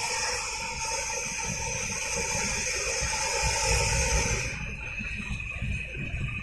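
Steady hiss of traffic on a wet highway, tyres and wind, with a low rumble underneath and a faint steady whine. The hiss thins about two-thirds of the way through.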